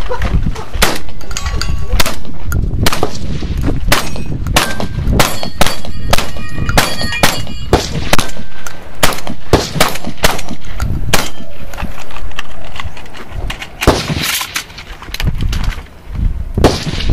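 A rapid string of gunshots from a 3-gun competitor shooting a course of fire, some shots followed by the ring of struck steel targets. The shots thin out and grow quieter in the last few seconds.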